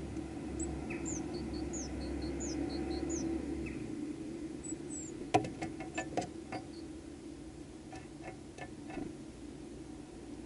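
A small songbird calling: thin, high, falling notes repeated about twice a second for the first few seconds, over a steady low hum. About halfway, a quick run of sharp taps and clicks, the loudest sound, followed by a few softer taps.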